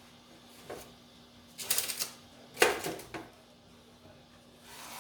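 Kitchen work-surface handling sounds: a quick rattle of clicks about a second and a half in, then a sharp knock a second later and a smaller one after it.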